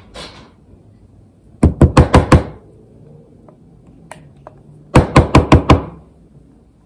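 A spoon rapped against the rim of a cooking vessel, knocking off food: two quick runs of five or six loud knocks, about three seconds apart.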